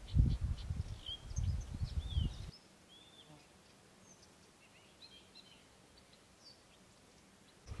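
Wind buffeting the microphone in low rumbling gusts, with birds chirping and calling behind it; about two and a half seconds in the wind noise cuts off suddenly and only faint bird calls remain.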